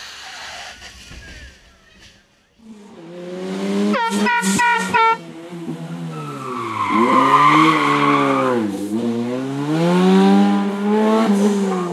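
Rally car engine coming in about two and a half seconds in and running hard. There is a quick burst of short high-pitched chirps, then the revs drop and climb again through gear changes while the tyres squeal as the car slides through a corner.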